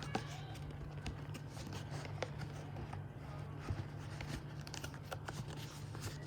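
Light clicks, taps and rustles of a watch box and its packaging being handled and opened by hand, over a steady low hum.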